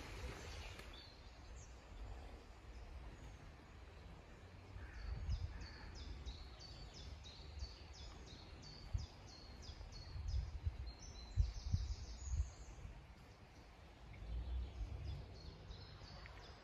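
A small bird singing a long run of short, high, repeated notes, from a few seconds in until past the middle, over a low rumble with a few bumps.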